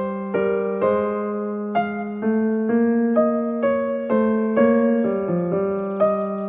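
Background music: a piano-like keyboard playing a steady run of single notes, about two a second, over a held low note.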